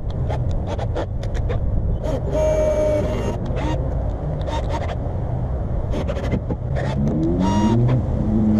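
Cordless drill running in short bursts as it drills holes through a plastic fuel filler neck cover: a steady whine about two seconds in and again near the end, with the pitch rising as the drill speeds up at the end. Short clicks and knocks of handling come in between, over a low background rumble.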